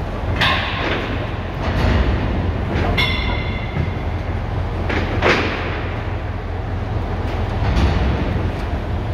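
Truck-mounted crane lifting a slung bundle of steel beams, its engine running with a steady low rumble under the load. Several metal clanks and scrapes from the steel come through over it. One clank, about three seconds in, rings briefly.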